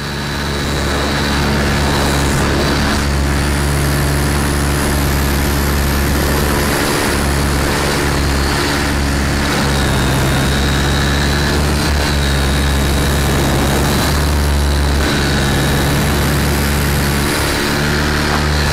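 Thunder Tiger E700 radio-controlled helicopter in flight, its motor and main rotor blades running hard with a steady low hum under a thin high whine that wavers slightly. It is picked up close by a camera mounted on the helicopter.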